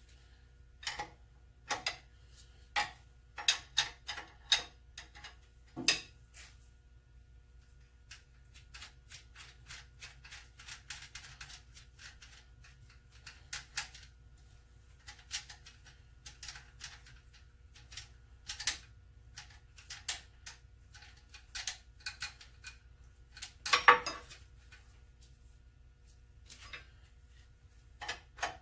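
Steel wrench clicking and clinking against a nut and the metal bracket of a Sheldon lathe's belt drive as the nut is worked loose to slacken the drive belt. Irregular light metallic clicks, with one louder knock about three-quarters of the way through.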